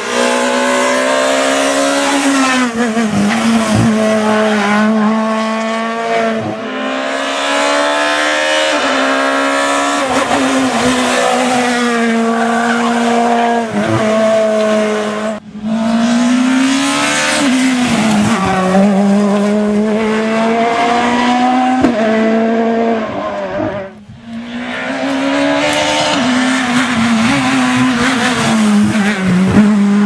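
Skoda Fabia S2000 rally car's naturally aspirated 2.0-litre four-cylinder engine run hard at high revs, its pitch climbing and dropping again and again through quick gear changes. The sound breaks off briefly twice as one pass gives way to the next.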